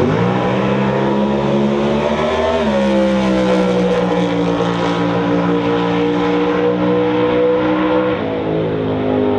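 Drag car's engine at full throttle on a quarter-mile pass: its pitch climbs hard off the line, drops once at a gear change about three seconds in, then holds high and creeps upward. About eight seconds in it falls away as the driver lifts off the throttle at the end of the run, with the parachute out.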